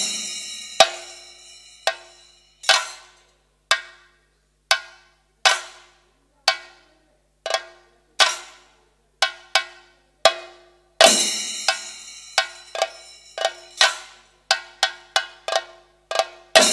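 Elathalam, Kerala's bell-metal hand cymbals, struck in a slow, evenly spaced beat, each clash ringing on. A louder clash about eleven seconds in starts a quicker run of two or three clashes a second.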